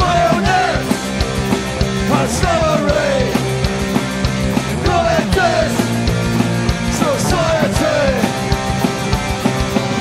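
Oi!/streetpunk band recording: a full rock band with distorted electric guitars and a driving drum beat. A melody line slides down in pitch several times.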